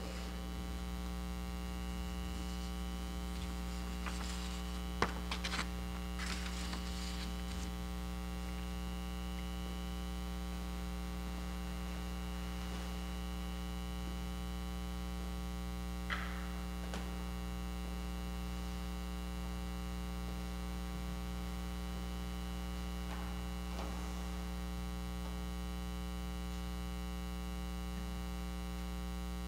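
Steady electrical mains hum in the sound system, with a few faint knocks about five and six seconds in and again around sixteen seconds.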